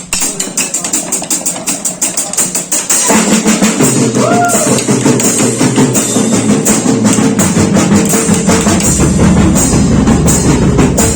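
Drum kit playing a fast, even groove. Pitched backing music joins about three seconds in, and a deeper bass layer comes in near the end.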